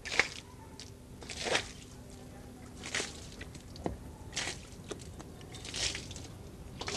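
Water thrown from a plastic bucket splashing against a boat hull in short dashes, about five splashes roughly a second and a half apart, rinsing hull cleaner off the waterline.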